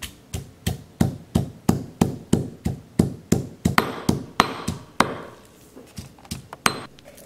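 A pestle pounding garlic cloves in a heavy stone mortar: about twenty strikes at a steady three or so a second, stopping near the end.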